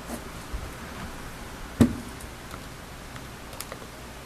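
A graphing calculator set down on a desk with one knock a little under two seconds in, then a few light clicks as its keys are pressed.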